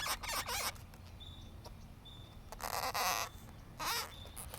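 Latex modelling balloons being handled: several short rubbing, rustling noises, the longest about two and a half seconds in, with a few faint high squeaks between them.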